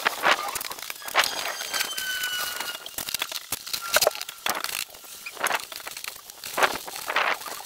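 Plastic damp-proof membrane sheet crinkling and crackling as it is handled and pulled tight, in short irregular rustles.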